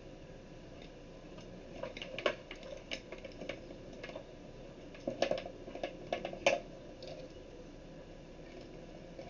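Small clicks and knocks of a rubber hose being worked onto the end of a bicycle pump by hand, in two bursts, about two seconds in and again from about five to six and a half seconds in.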